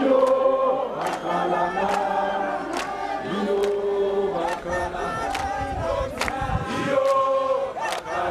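A crowd singing together in several voices, with a sharp beat falling roughly once a second.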